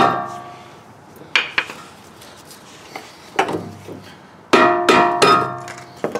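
A mallet knocking on a car's rear brake rotor and caliper assembly: a string of sharp metal knocks, each leaving a ringing tone that dies away. The hardest knock comes first, and a tight cluster of ringing clanks follows about four and a half seconds in.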